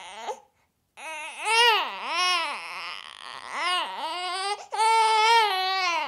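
A baby whining: fussy cries that rise and fall in pitch, one after another, ending in a longer, steadier wail.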